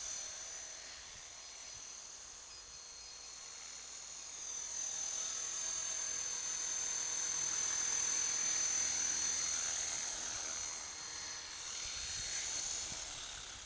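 Electric T-Rex 450 clone RC helicopter in flight: the high-pitched whine of its motor and rotor head. It grows louder in the middle and softer again near the end.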